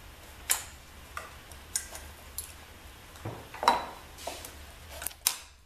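Scattered light metal clicks and clinks, about eight of them, the loudest just before four seconds and just after five: a motorcycle cam chain being fished up through the cylinder block's chain tunnel with a brass tube. A softer low knock comes just after three seconds.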